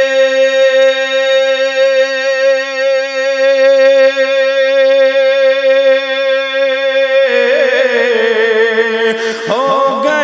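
Naat singing: one long sung note held with vibrato for about seven seconds over a steady lower drone, then layered backing voices take over, their pitch rising near the end.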